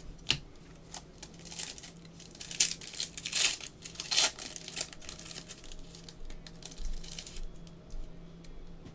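Foil-wrapped trading card packs crinkling and rustling as gloved hands pick them up and handle them, a run of irregular crackles that is loudest in the middle.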